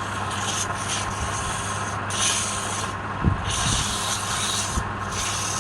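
Wood lathe running with a steady hum, with a hissing rub that comes and goes in passes of about half a second to a second as the spinning workpiece is worked. There are a couple of low knocks, the first about three seconds in.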